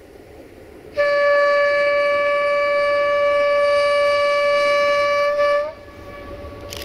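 LDE1250 (040-DF) diesel-electric locomotive's horn sounding one long steady blast of about four and a half seconds, a single note that bends up slightly as it cuts off, over a low rumble.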